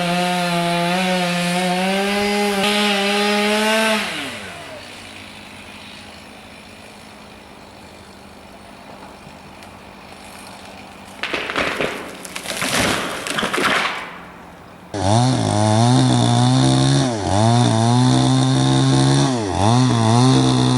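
Chainsaw revved to full throttle for about four seconds, then dropping back to a faint idle. About eleven seconds in comes a few seconds of loud crashing noise. Then a chainsaw is revved up and down repeatedly, about every second and a half, as when cutting.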